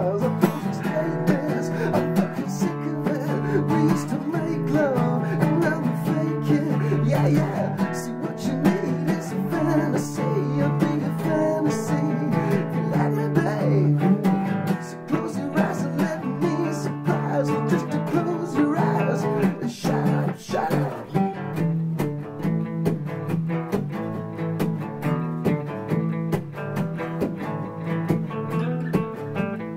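Acoustic guitar music: a guitar playing chords and notes without a break.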